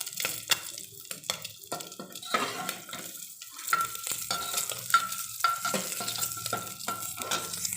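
A utensil scraping and knocking in a pressure cooker pot of hot oil, with the oil sizzling, as fried spiced boiled eggs are stirred and lifted out.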